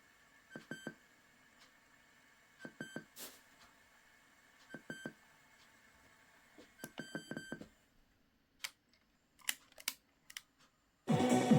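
Short, faint clicks with a thin beep-like ring, in pairs and small clusters a couple of seconds apart, then a few isolated clicks. Music comes in loudly near the end.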